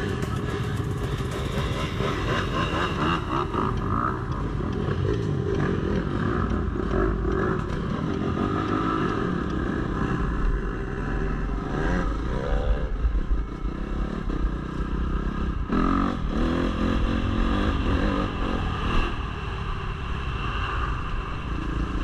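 Dirt bike engine running as it is ridden along a rough off-road trail, its pitch rising and falling with the throttle, with rattling from the bike over the rough ground.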